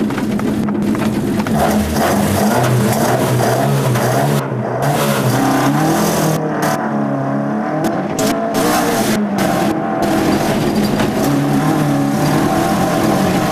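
Mk1 Ford Escort rally car's engine heard from inside the cabin at full effort, the revs climbing and dropping again and again through the gear changes. Steady road noise from the tyres on the loose gravel surface runs beneath it.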